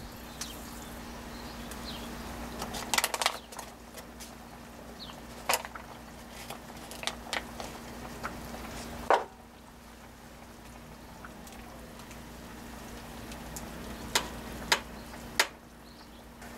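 Cooking sounds: a pot simmering, with a steady low hum underneath and about ten scattered sharp clicks and taps.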